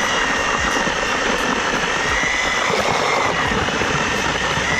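A motor-driven mixer running steadily with a high whine, churning mortar mixed with added road-base gravel.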